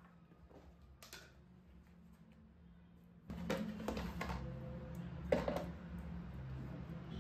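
Plastic kitchen containers and lids being handled on a counter: a few sharp knocks and clicks. A steady low hum comes in about three seconds in.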